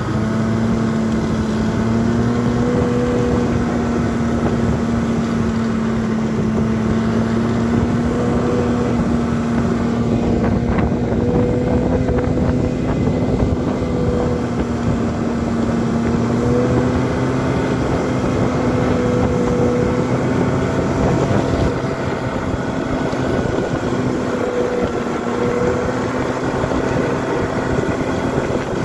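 Snowmobile engine running steadily at cruising speed, a continuous drone whose pitch wavers slightly up and down, with wind noise on the microphone.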